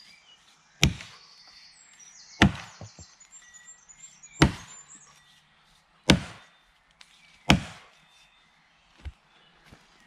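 Axe chopping into the trunk of a standing birch tree: five heavy strikes, about one every one and a half to two seconds, then a lighter knock near the end.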